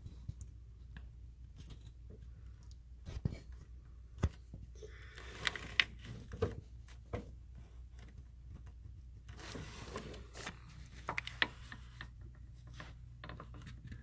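Scattered light clicks and scrapes of hands pressing on a newly installed timing chain and its plastic guides, over a steady low hum.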